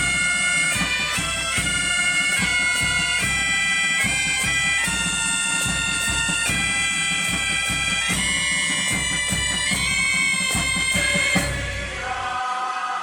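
Asturian bagpipe (gaita) playing a lively melody, with a drum beating along under it. About twelve seconds in the piping and drum stop and a softer, lower-pitched sound follows.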